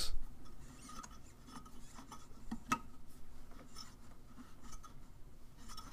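Faint clicks and rubbing as a plastic pump impeller is hand-tightened onto the motor shaft, with a screwdriver holding the shaft still; one sharper click about two and a half seconds in.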